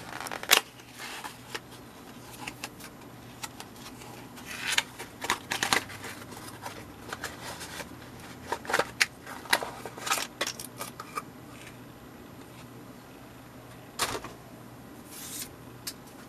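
Small cardboard product box being opened and handled with cotton gloves: scattered taps, clicks, scrapes and rustles of paperboard as the flaps are opened and the contents slid out. The loudest click comes about half a second in, with further clusters of clicks in the middle and around the fourteen- and fifteen-second marks.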